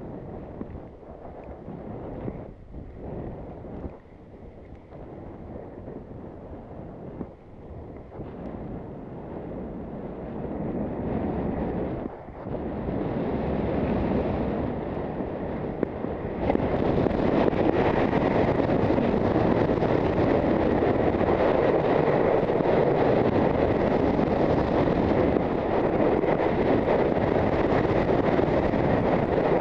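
Wind rushing over a helmet camera's microphone as a skier runs downhill, mixed with skis running over snow. The rush builds as speed picks up and becomes steady and loud from a little past halfway.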